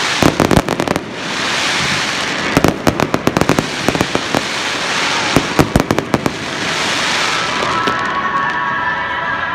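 Fireworks display: aerial shells going off in three quick clusters of sharp crackling bangs, with a loud hissing rush between the clusters. Near the end the bangs stop and a steadier hiss carries on.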